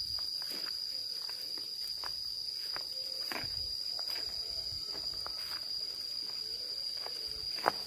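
Insects droning in one steady high tone, with irregular footsteps and light clicks on a dirt footpath and one sharper knock near the end.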